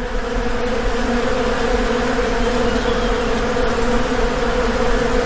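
Honeybees buzzing: a steady, continuous buzz with a strong hum around one pitch.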